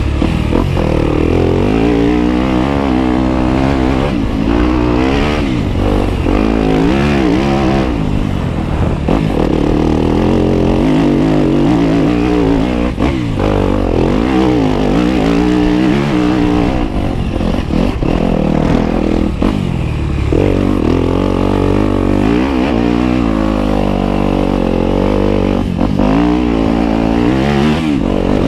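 Off-road vehicle engine running continuously under changing throttle, its pitch rising and falling over and over as it speeds up and eases off.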